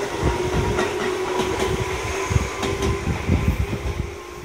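Tobu 6050 series electric train running out of the station: a steady hum with rumbling wheel noise, fading away near the end as the last car leaves.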